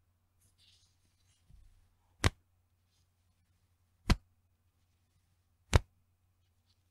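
Bra elastic band snapped three times, a sharp 'petin' slap each time, the first a little over two seconds in and the next two about two seconds apart. Faint fabric-like rustling comes before the first snap.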